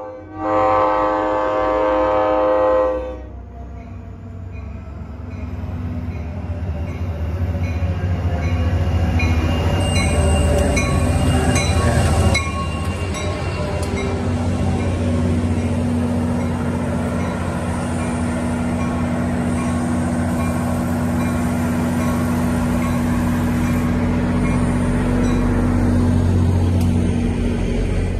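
NJ Transit diesel locomotive sounding one long horn blast about half a second in, then a bell ringing about twice a second over the low diesel rumble as the train pulls in. From about halfway through, the locomotive stands with its engine idling under a steady hum.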